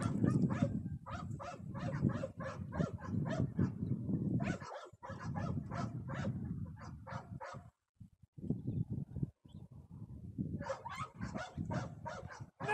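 A dog whining and yipping in rapid short cries, several a second, over a low rumble of wind on the microphone, with a brief pause about two-thirds of the way through.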